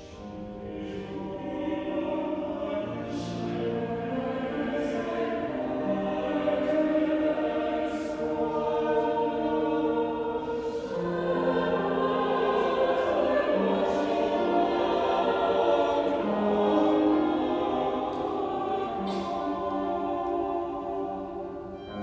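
Mixed SATB choir singing held chords together, swelling in loudness as the voices enter at the start.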